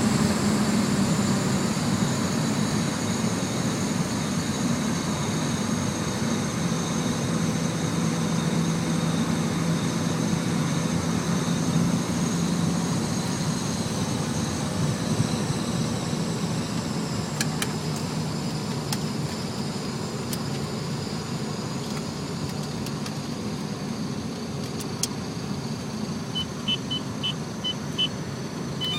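E36 BMW M3's straight-six engine and road noise heard from inside the car while cruising at speed, the engine note steady and easing slightly lower over the stretch. A few short high beeps sound near the end.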